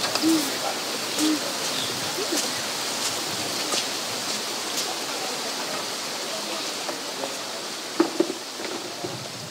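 Steady rushing noise of wind, with a few light knocks and clicks and two sharper knocks about eight seconds in.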